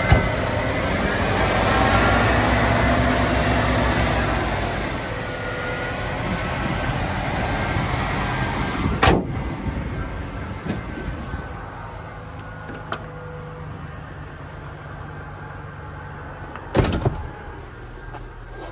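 1992 Ford Bronco's 4.9-litre inline-six engine running just after start-up, its revs rising and falling over the first few seconds before it settles to a steady idle. A heavy thump about nine seconds in as the hood is slammed shut, and another near the end as a door shuts.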